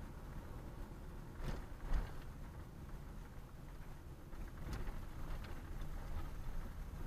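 Car driving: a steady low rumble of engine and tyres, with a thump about two seconds in and a few light clicks later.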